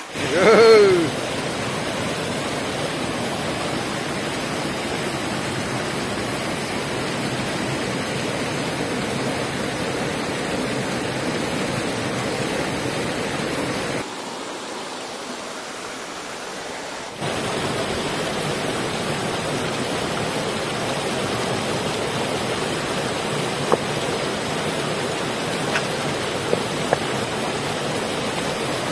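Shallow rocky mountain stream rushing steadily over stones. In the first second a voice gives a loud, short exclamation that falls in pitch. The rushing drops quieter for a few seconds midway, and a few faint clicks come near the end.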